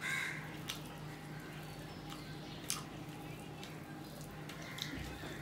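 Fingers mixing rice and curry on a steel plate: faint wet squishing with a few light clicks.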